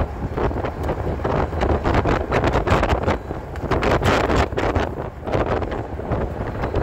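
Wind buffeting the microphone: an uneven, gusting rush with a heavy low rumble.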